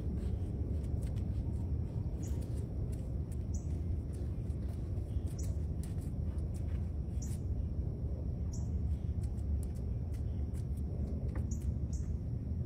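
Outdoor background noise: a steady low rumble with short, high chirps every second or two.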